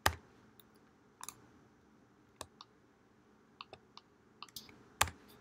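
Faint, scattered clicks of computer keyboard keys and mouse buttons, about a dozen short clicks spread unevenly, the loudest about five seconds in.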